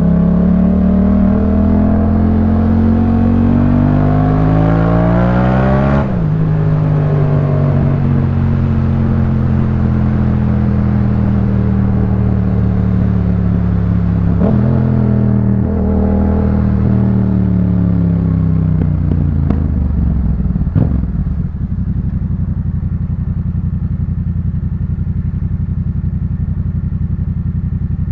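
Yamaha MT-07's parallel-twin engine through a Jeskap K4 full aftermarket exhaust under way. Revs climb for about six seconds and then drop sharply at a gear change. The engine holds a fairly steady speed, changes again about halfway through, then falls away as the bike slows and settles to a low, steady engine speed for the last several seconds.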